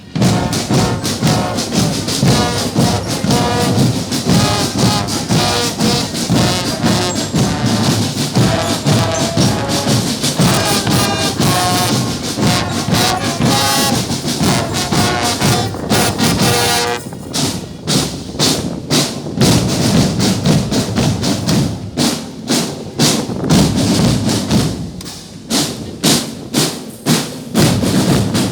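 Band music with brass and percussion playing a melody over a busy beat. About two thirds of the way in the melody drops out, leaving mainly drums striking a steady rhythm.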